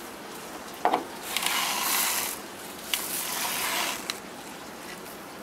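Plastic masking film with an adhesive tape edge being pulled off its roll and stuck down: a short click about a second in, then two noisy pulls of about a second each.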